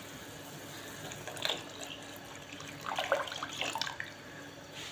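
Milk poured in a thin stream into a pot of boiled kahwa, splashing and gurgling, mostly from about three seconds in, over a steady low hiss.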